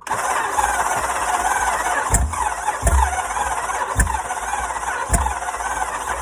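A 5.7 L Hemi V8 being cranked over in an attempt to start it, with a loud squeal and heavy thumps roughly once a second. The engine is hydrolocked, rod-knocking, with mud in the oil and a cracked block.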